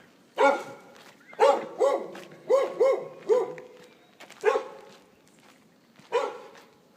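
A dog barking: about eight short barks, several in quick succession in the first half, then single barks with longer pauses between them.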